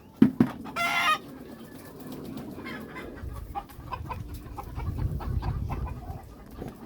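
Chickens clucking in short repeated clucks, with a brief loud squawk about a second in and a thump just before it.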